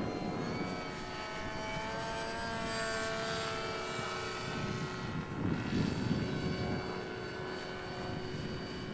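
Electric motor and propeller of a 3D-printed RC scale model of the Abrams P-1 Explorer in flight: a steady whine of several tones that drifts slightly in pitch as the plane flies its circuit.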